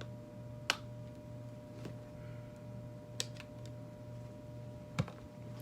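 Bed Head hair crimper clicking as its plates are clamped shut on the hair and released: four short, sharp clicks spaced a second or more apart, over a steady low hum.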